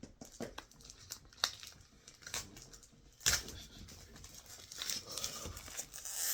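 Product packaging being handled and opened by hand: irregular crinkling, rustling and tearing with small clicks, and a louder sharp rustle about three seconds in.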